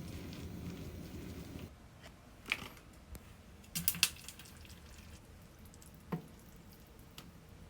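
A steady low noise stops abruptly after about a second and a half. Then come a few separate clinks and taps of cookware being handled, loudest as a quick cluster a little before the middle.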